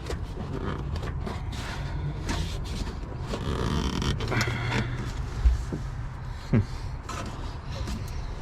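Hands fumbling behind a car headlight to reach the bulb connector: scattered clicks, rubbing and knocks. A sharp knock comes past the middle.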